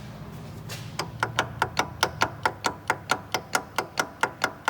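Rapid, even metallic clacking, about five a second, starting about a second in, from the right-side intermediate stub shaft of a 2016 Chevy 2500's front axle being rocked back and forth: the excessive play there is taken for a worn bearing inside the differential tube.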